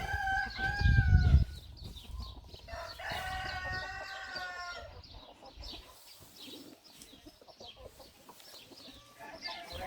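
Roosters crowing: one crow trailing off about a second and a half in, then a second full crow from about three to five seconds, with hens clucking around them. A low rumble sits under the first crow.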